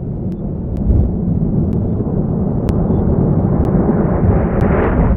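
Outro sound effect: a deep, continuous rumble like distant thunder or an explosion, growing brighter toward the end, with faint high ticks scattered over it.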